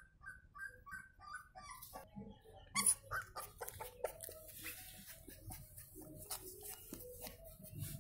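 Pitbull puppy whimpering in short, high squeaks, with a sharp knock about three seconds in followed by close rustling and scraping against the microphone.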